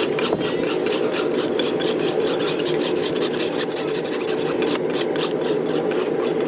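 Rapid, rhythmic rasping strokes on a horse's hoof, about five or six a second, over a steady low hum.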